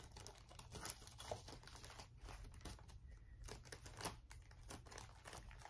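Faint, irregular crinkling and light rustling of packaging being handled while a pack of embroidery threads is sorted through by hand.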